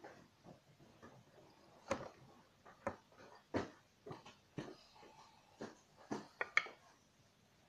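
Irregular light clicks, taps and small splashes as water is scooped a capful at a time from a glass bowl and poured into a small glass jar.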